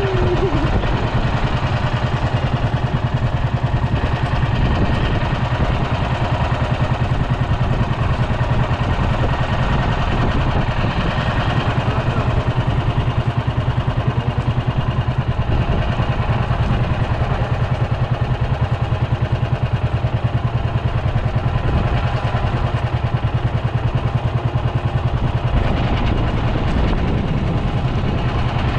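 Outrigger boat's engine running steadily under way, a continuous even drone with a fast regular pulse.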